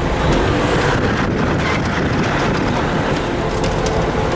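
Kenworth truck driving along an unsealed dirt road, heard from inside the cab: the engine running steadily under a constant rush of road and wind noise.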